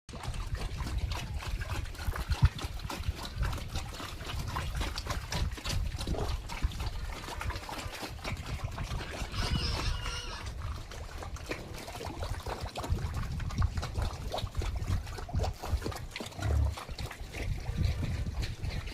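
Pigs grunting while busy at wet feed or water, with irregular wet splashing and knocking sounds throughout. A short, high-pitched squeal comes about ten seconds in.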